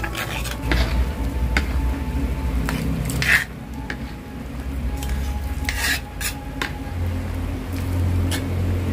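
A metal ladle stirring and scraping in an aluminium wok of simmering, sizzling vegetables and in a dark pot of spice paste, with a series of sharp clinks of metal on the pans. Near the end, broth is poured from the pot into the wok.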